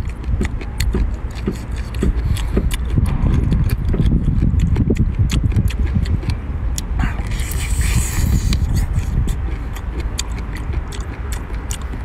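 Close-miked chewing and eating: wet smacking and clicking mouth sounds over a steady low rumble, with a brief hiss about seven seconds in.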